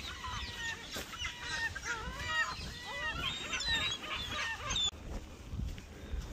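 A flock of birds calling, many short overlapping calls and squawks, cutting off suddenly about five seconds in.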